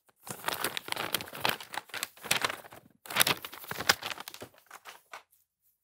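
Paper being crumpled and rustled in a run of irregular crackles, stopping about five seconds in.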